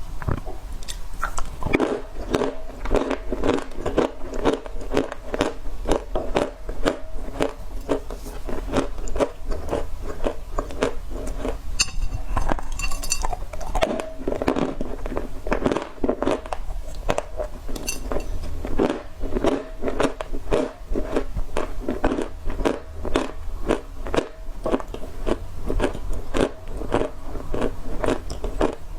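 Close-miked biting and chewing of dry clay (loess), a dense run of rapid, gritty crunches.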